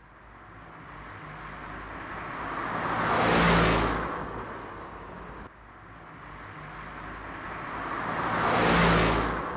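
A car passing by, twice: the sound swells to a peak about three and a half seconds in and fades, cuts off abruptly, and the same pass repeats, peaking near the end.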